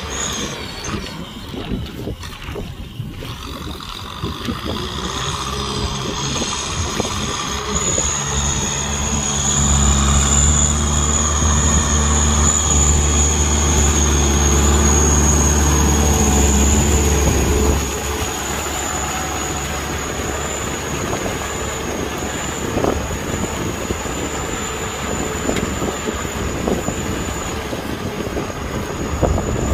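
Kubota M6040 tractor's four-cylinder diesel engine running steadily under load while pulling a disc plow through paddy mud. The engine is loudest as the tractor passes close, from about nine to eighteen seconds in, then drops back. A steady high-pitched whine sits above it from about eight seconds in until near the end.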